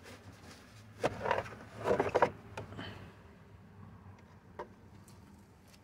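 Plastic under-dash air duct being worked loose and pulled out: two short bursts of plastic scraping and clattering about one and two seconds in, followed by a few light clicks.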